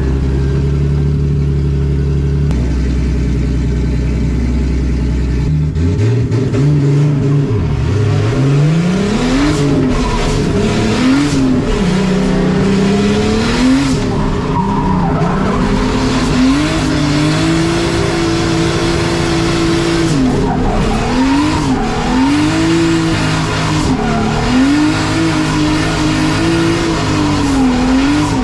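BMW E30 drift car's engine heard from inside the cabin, idling steadily at first. About five seconds in it starts revving up and down over and over, with revs held high for a few seconds near the middle.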